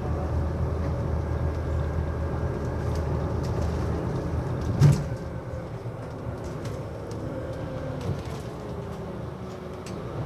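Tram running along street track, heard from inside the car: a steady low rumble, with a single loud knock about halfway through. After the knock it runs more quietly, with a faint falling whine.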